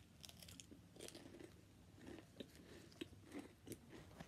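Faint chewing and crunching of a Kinder Happy Hippo wafer biscuit, with irregular crisp crunches a few times a second.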